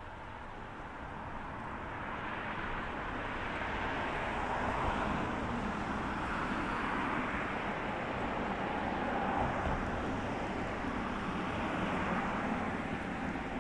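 A motor vehicle going by on the road, heard as a steady rushing of engine and tyres that grows louder over the first few seconds and then holds.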